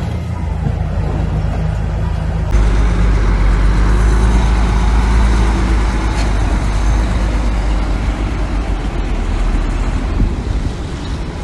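Diesel engine of heavy earthmoving machinery running steadily. About two and a half seconds in it changes suddenly to a louder, deeper rumble.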